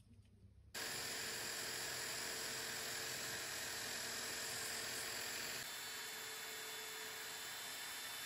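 Electric drill running steadily and spinning a metal rod used in place of a lathe, while a hand file is held against the spinning rod end and then, a little past halfway, abrasive paper. The noise starts about a second in and changes in character where the file gives way to the sandpaper.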